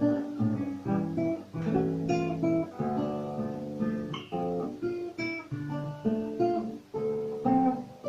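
Solo seven-string acoustic guitar (Russian guitar) playing a slow folk melody, with plucked notes over a bass line and chords.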